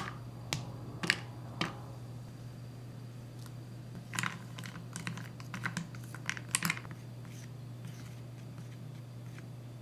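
Squares of chocolate dropped into a plastic measuring cup, four sharp clicks about half a second apart, then a plastic spatula scraping and clicking against the chocolate pieces and the cup wall as they are stirred to melt. A low steady hum runs underneath.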